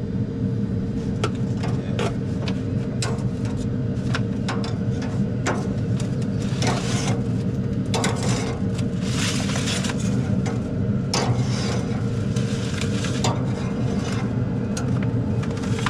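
Cooking and handling at an outdoor fire-pit grill: scattered sharp clicks and scrapes, with a few short hissing stretches in the middle, over a steady low rumble.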